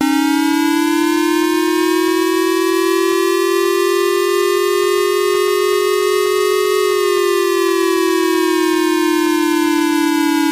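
Emergency-alert siren: a steady electronic wail that starts abruptly, rises slowly in pitch for about seven seconds, then slowly falls. It is the warning tone ahead of a nuclear-accident alert.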